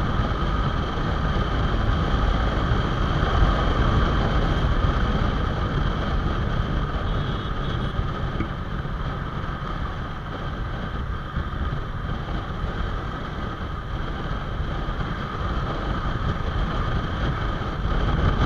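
Honda Hornet 2.0's single-cylinder engine running at riding speed, half buried in wind rush on the rider's microphone. It eases off slightly in the middle and picks up again near the end.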